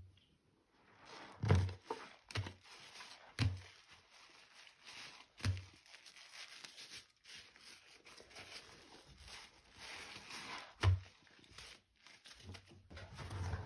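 Soapy sponge squeezed and worked in a sink of sudsy water: wet squelching and sloshing, broken by several dull thumps.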